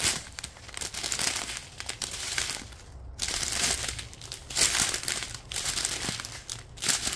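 A strip of small clear plastic zip bags holding diamond-painting drills crinkling as it is handled and worked along bag by bag, in uneven rustling spells with a short pause about three seconds in.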